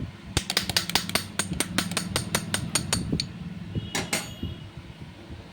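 Metal hand tool working on a motorcycle's timing chain adjuster: a quick run of even metallic clicks, about seven a second, for about three seconds, then a short metal clink with a brief ring about four seconds in.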